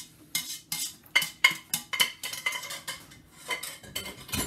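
A metal utensil scraping and knocking against the inside of a stainless steel saucepan as soup is scraped out of it into a blender jar: a quick, uneven run of clinks and scrapes, about three or four a second.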